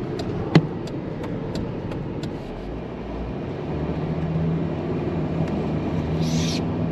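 Engine and tyre road noise heard from inside a moving car's cabin. A run of light, evenly spaced ticks sounds in the first couple of seconds, with one sharper click about half a second in, and a steadier engine hum comes in from about halfway.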